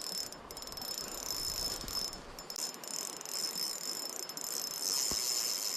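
Fishing reel drag buzzing in rapid clicks as a hooked brown trout pulls line against it, over the steady rush of the river.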